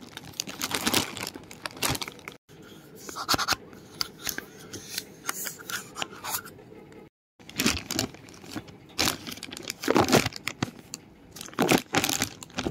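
A toy surprise capsule's packaging being torn open and handled: a run of short tearing, crinkling and scraping sounds as a plastic seal strip is peeled off, the plastic capsule is pulled apart and a foil wrapper is opened. Twice the sound drops out for a moment.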